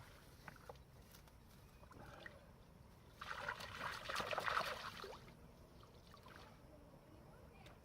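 Water splashing and trickling for about two seconds, starting about three seconds in, as a fishing magnet on a wet rope is worked in the river and pulled out.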